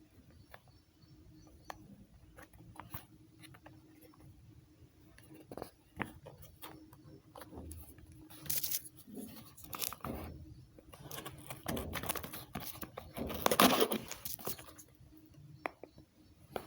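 A parcel's packaging being handled and torn open: scattered small clicks and crinkles at first, then louder tearing and rustling from about eight seconds in, loudest near the end.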